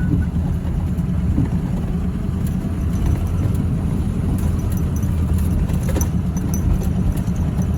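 Pickup truck driving slowly with a steady low engine and road rumble, and a few light rattles and clicks.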